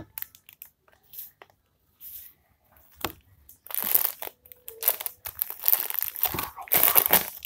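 Clear plastic packaging bag crinkling as a squishy toy is handled inside it: a few short crackles at first, then denser, continuous crinkling from about halfway through.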